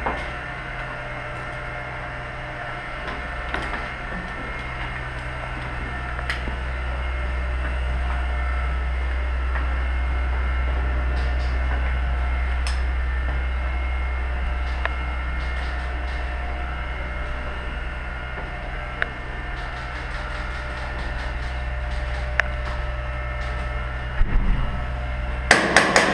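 Steady low rumble of movement and handling noise on a GoPro camera as its wearer moves down a stairwell, with scattered light footsteps and knocks. Near the end comes a quick cluster of sharp, loud knocks.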